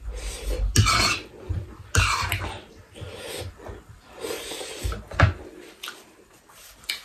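A woman coughing several times in short bursts between mouthfuls of noodles, her throat irritated by the chili heat of extra-spicy Buldak ramen.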